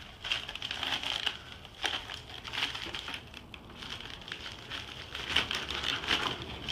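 White foam packing wrap crinkling and rustling in irregular crackles as a foam-wrapped package is handled and cut open with a knife.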